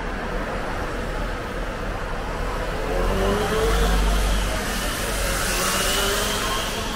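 Night street ambience with a car driving past, swelling to its loudest about halfway through and easing off near the end.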